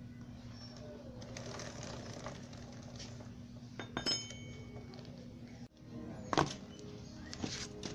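Metal clinks of a tool against a motorcycle drive chain and rear sprocket, with one ringing clink about four seconds in and a sharper metallic knock about six and a half seconds in, over a steady low hum.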